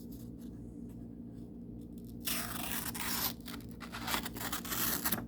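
Freshly sharpened carbon steel pocket knife blade slicing through a sheet of paper to test its edge: a papery hiss about two seconds in, lasting about a second, followed by a few lighter paper crackles. The cut is judged good, a sign of a sharp edge.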